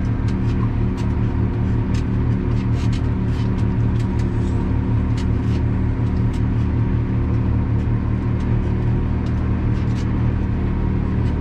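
Tractor engine running at a steady pitch while driving slowly through a field, heard from inside the cab, with scattered faint ticks and rattles.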